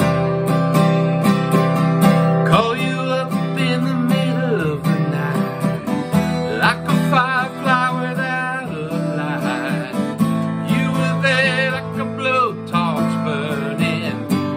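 Steel-string acoustic guitar strummed steadily, with a man singing over it from about two and a half seconds in.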